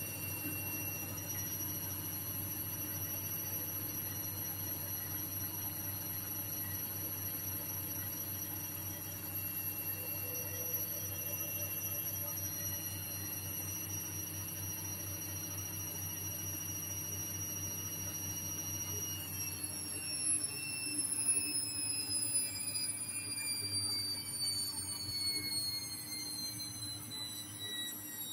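Hotpoint WMA30 washing machine on an interim spin: a steady high whine over a low hum, then about two-thirds in the pitch falls steadily as the drum slows down.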